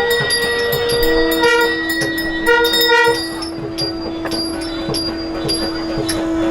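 Devotional music accompanying a sung Tamil hymn: long held pitched notes, one sustained for about five seconds, over small hand cymbals clicking in a steady beat.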